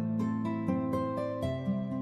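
Background music: plucked-string notes, in the manner of a guitar or harp, with a bass line.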